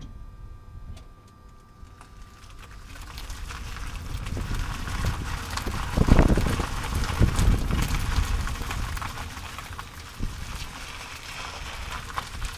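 Road and tyre noise picked up under a 30-series Toyota Prius as it drives, swelling as the car gets under way, with a few heavy low bumps about six and seven seconds in.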